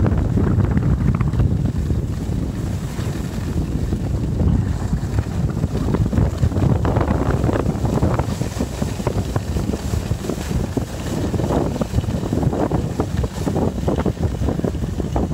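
Wind rushing over a phone's microphone during a ski run: a continuous low rumble that surges and eases in gusts.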